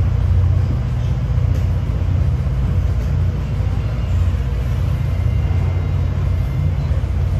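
Steady low rumble of a Tri-Rail diesel commuter train in motion, heard from inside a passenger coach.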